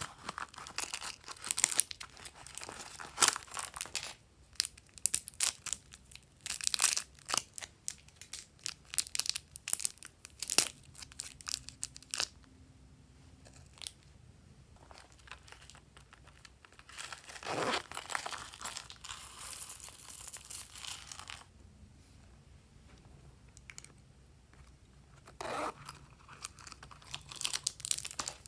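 Crinkling and rustling of small plastic packaging handled close up: a glossy vinyl zippered mini pouch being opened and worked, then small plastic bags of sequins and clay, with many quick crackles and clicks. Midway there is a longer rustling stretch as sequins are scattered into the trays.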